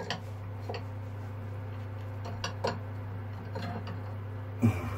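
Irregular light metallic clinks and knocks from the steering cable, quadrant and bolt fittings of a sailboat's wheel-steering gear as they are worked on, with a louder knock near the end, over a steady low hum.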